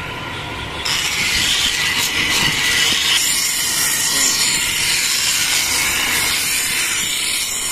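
Steel hedge-shear blade being ground on a spinning grinding wheel to sharpen its edge: a steady, loud grinding hiss that sets in about a second in, as the blade is pressed to the wheel and throws sparks.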